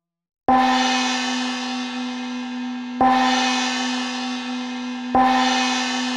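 Meditation bell struck three times, about two and a half seconds apart, each stroke ringing on with a steady, slowly fading tone.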